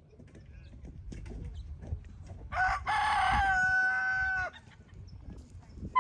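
A rooster crows once, starting about two and a half seconds in. It opens rough and breaks into a long held note that cuts off suddenly.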